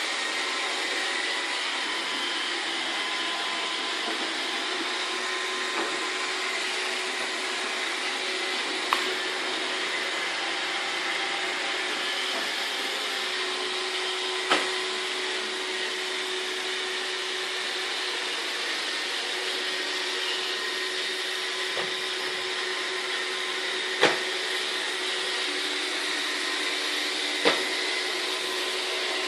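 iRobot Roomba 631 robot vacuum cleaner running with a steady whirring hum, broken by four sharp knocks spread through.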